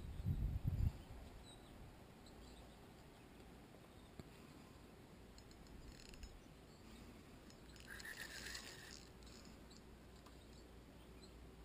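Faint riverside ambience: low buffeting on the microphone for about the first second, then quiet, with a brief animal call about eight seconds in.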